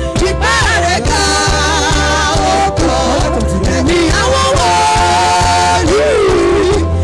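Music: a voice singing long, wavering melodic lines over a steady low accompaniment.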